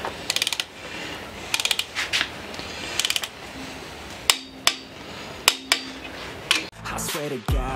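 Ratchet wrench on the ARP head-stud nuts of a Ford Coyote V8 cylinder head, clicking in three short rapid bursts as the nuts are run down in the tightening sequence, followed by a few single sharp clicks. Music starts near the end.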